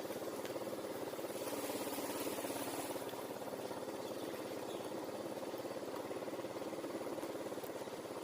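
A small engine running steadily with a fast, even firing pulse.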